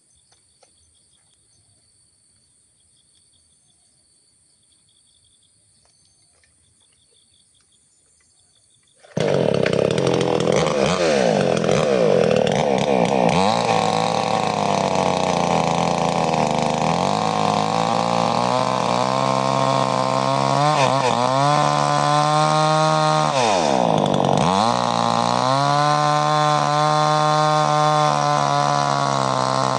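Faint insect chirping, then a 58 cc two-stroke Mollar chainsaw comes in suddenly at full throttle, about a third of the way in. Its pitch sags and recovers several times as the chain bites into the wood, most deeply twice in the last third.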